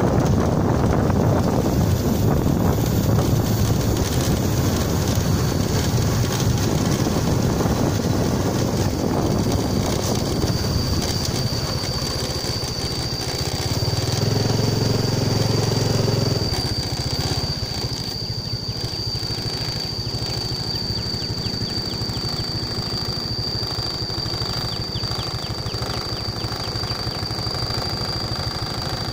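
Vehicle running along a rural road: engine and road noise with wind buffeting the microphone, heavier in the first half. A steady high-pitched whine sets in about a third of the way through, and a deeper engine hum swells for a couple of seconds near the middle.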